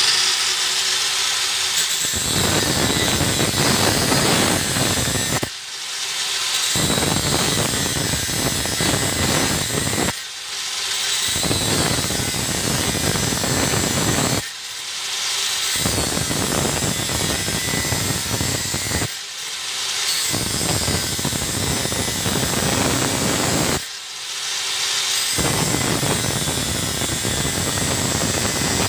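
Angle grinder with a 125 mm, 0.8 mm thin cutting disc slicing through metal bar, with sparks flying. It cuts in runs of about four to five seconds; between them the disc lifts off the work for about a second and the grinder spins free with a high whine, five times in all.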